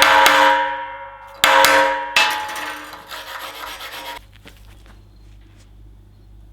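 A hammer striking a steel workpiece that rings with a clear metallic tone. Two strikes come in quick succession about a second and a half in, and the ringing fades and then cuts off suddenly about four seconds in.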